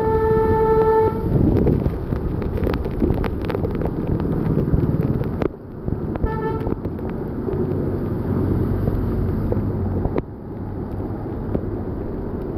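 A vehicle horn held for about a second at the start, then a short second honk about six seconds in. Under it runs a steady wash of heavy rain and tyres running through a flooded road.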